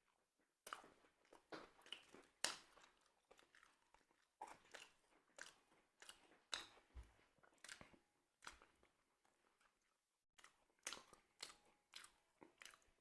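Close-up crunchy chewing and biting of crisp grilled bánh mì, a run of irregular sharp crackling crunches with a short pause near the end.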